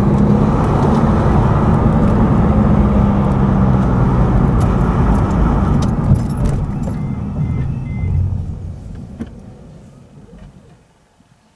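Car driving, heard from inside: steady engine and road noise that fades as the car slows down and stops, dying away about ten seconds in.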